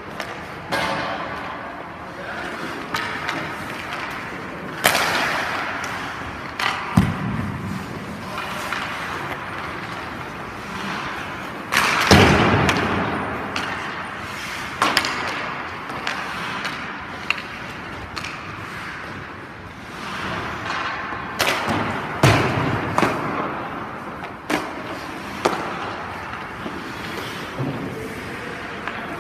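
Ice hockey goalie's skate blades scraping and carving the rink ice in short pushes, each scrape lasting about a second. Sharp knocks and thuds come several times between them.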